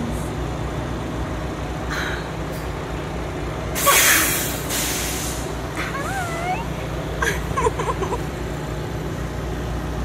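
Steady low rumble of a running vehicle heard from inside it. About four seconds in comes a loud hissing burst, with a second near five seconds, and around six to eight seconds there are a few short, pitched chirps that rise and fall.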